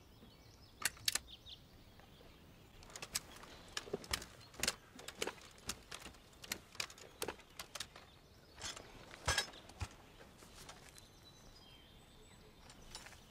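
Scattered faint clicks and rattles of soldiers' weapons and gear being moved and handled, with short pauses between them.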